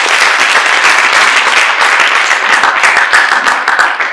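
Audience applauding, steady and loud, easing off at the very end.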